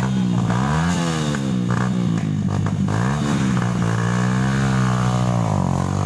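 Trail motorcycle engine revving up and down again and again, its pitch rising and falling roughly every second, over a steady lower engine note.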